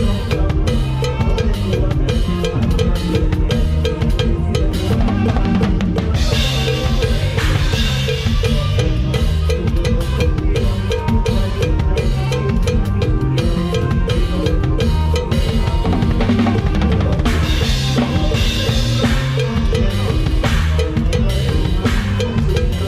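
Drum kit played to a fast lam sing (Isan molam) band number: steady bass drum, snare and rimshots drive the beat under the band's melodic instruments. Cymbals wash over it twice, about six and seventeen seconds in.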